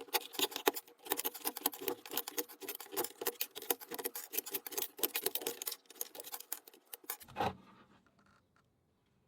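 Rapid scratching and clicking of hard plastic keyboard parts being worked by hand, ending with a single thump about seven seconds in, after which it goes quiet.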